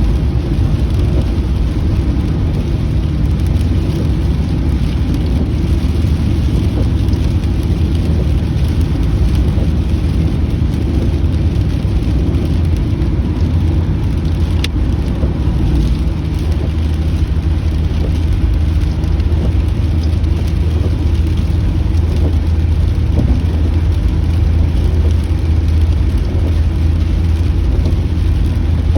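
Steady low rumble of a car driving, heard from inside the cabin, with rain falling on the car.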